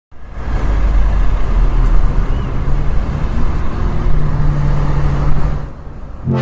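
Wind buffeting the camera microphone on an open beach: a loud, rough rumble with a hiss above it, which fades away near the end.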